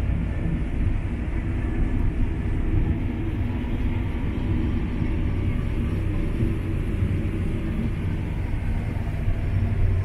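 CLAAS LEXION 8900 combine harvester running at full throttle with its threshing unit and header engaged, a steady low rumble heard from inside the cab.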